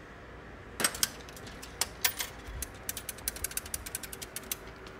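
Payphone being worked and dialed: a run of sharp mechanical clicks, sparse at first and then coming quickly, with a faint steady tone on the line near the end.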